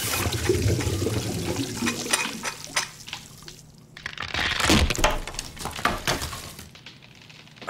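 Water gushing hard from a faucet into a sink. About four seconds in it gives way to sharp cracking and breaking of ceiling plaster around a stuck plunger, which dies away near the end.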